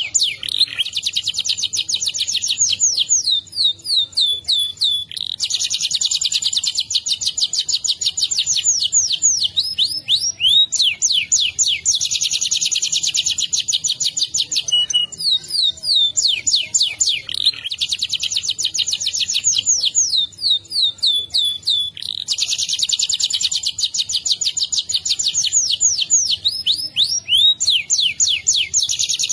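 Domestic canary singing without pause: long, very rapid rolling trills held for several seconds at a time, broken up by runs of quick downward-sliding notes.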